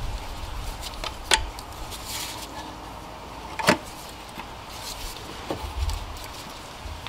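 Hands handling and fitting an engine's auxiliary air pump and its rubber hose into place: light rustling and handling noise with two sharp clicks, about a second in and again just before four seconds.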